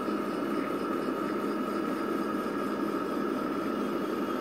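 Small electric motor running steadily: a hum with a thin high whine held on one pitch.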